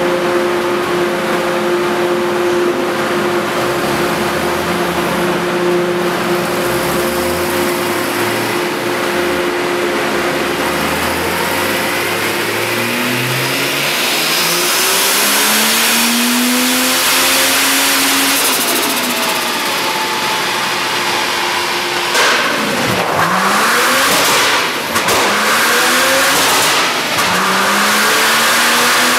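Turbocharged Toyota 1FZ straight-six in a Land Cruiser 70-series, running under load on a chassis dynamometer. Its revs climb slowly and steadily through the first half, hold, then fall away. In the last several seconds it is revved up and let off in quick rises and falls, each with a sharp break as the throttle closes.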